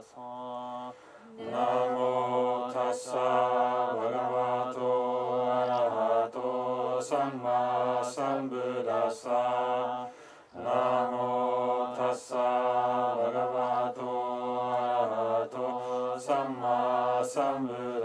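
Low voices chanting a Buddhist sutra in a steady, even rhythm, holding notes and stepping between a few pitches, with a short pause for breath around ten seconds in.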